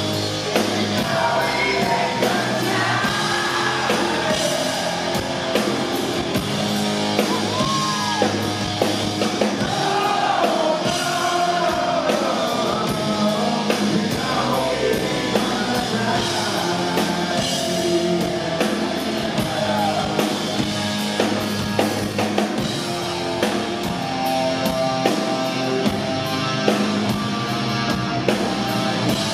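Live rock band playing: distorted electric guitars, bass and drums, with a male lead vocal sung over the first two thirds or so, after which the guitars carry on without the voice.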